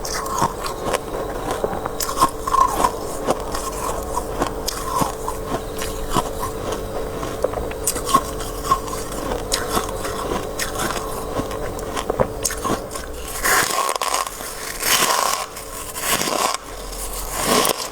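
Close-miked biting and crunching of soft freezer frost, many small crackles over a faint steady hum, with a few louder, longer crunching strokes near the end.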